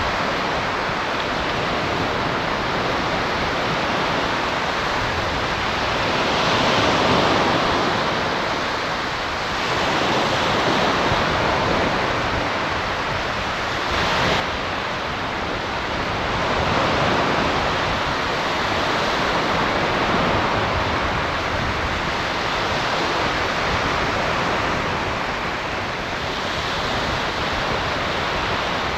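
Surf washing onto the beach, a steady rush that swells and fades every few seconds, with some wind on the microphone.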